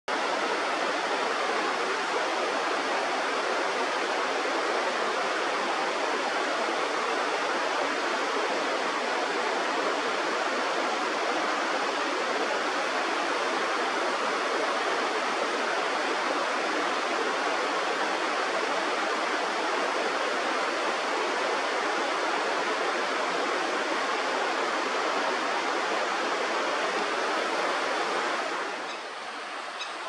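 Steady rushing of a fast mountain river flowing over rocks, even throughout, dropping somewhat quieter near the end.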